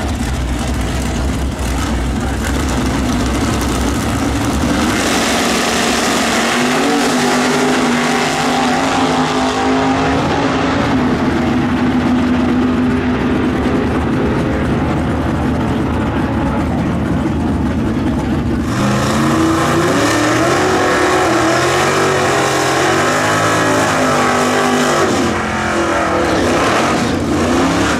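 1960s Super Stock drag cars with big V8 engines running loud at the start line, then launching and pulling away down the strip, the engine notes climbing and stepping up through the gears as they fade into the distance. After a sudden cut, another V8 muscle car's engine is heard revving up and down.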